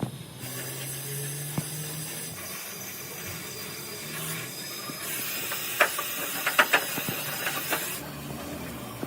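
A steady hiss that grows louder about five seconds in and cuts off about a second before the end, with a quick run of sharp knocks during the louder part.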